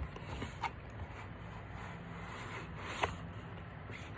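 Hands opening a small package: soft rubbing and scraping of the wrapping, with a few light clicks, the clearest about three seconds in.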